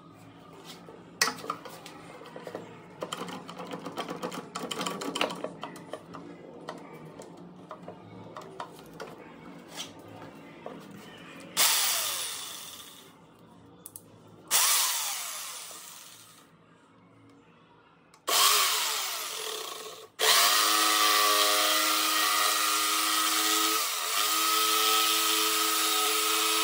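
Ryobi jigsaw: after some knocks and clatter of handling, the saw is switched on in three short bursts, each winding down with a falling pitch. Then, from about twenty seconds in, it runs steadily at full speed cutting through a wooden board.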